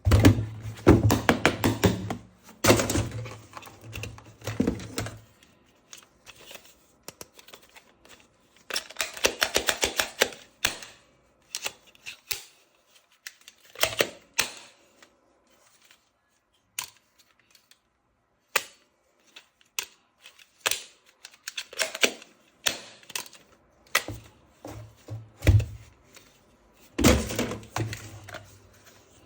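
Plastic toy parts and packaging being handled: bursts of rapid clicking and rattling, with single knocks and taps in between.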